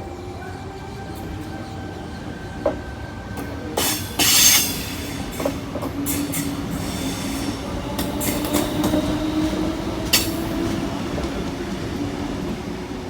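Sydney Trains electric suburban train moving through the station: a motor hum that slowly rises in pitch, with wheels clacking over rail joints and points. The loudest clacks come about four seconds in, with another sharp one about ten seconds in.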